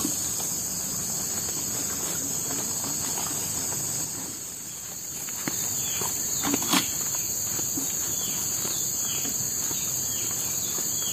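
Steady high-pitched chorus of tropical forest insects, with scattered small knocks and one sharp click about two-thirds through. In the second half a run of short falling chirps repeats a few times a second.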